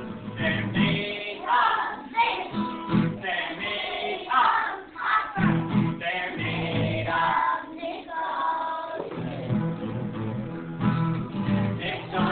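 A group of young children singing a song together, accompanied by a strummed acoustic guitar.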